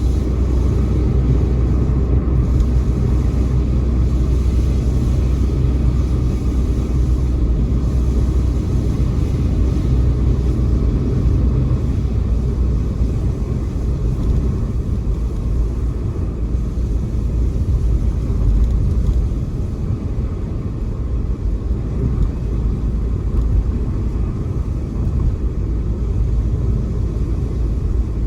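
A car driving: a steady low rumble of engine and tyre road noise, easing slightly a little past halfway.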